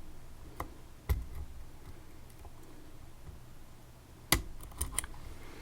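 A handful of sharp clicks and taps from a dimple lock being worked with picking tools. There are two about half a second apart near the start, then a quick cluster of three or four near the end.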